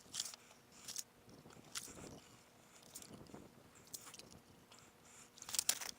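Faint, scattered crunches in snow and ice, roughly one a second, a little louder near the end.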